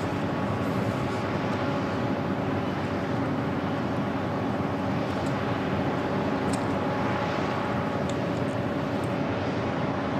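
HAL Tejas fighter's General Electric F404-IN20 afterburning turbofan running at takeoff power during the takeoff roll: a steady jet noise with several held tones through it.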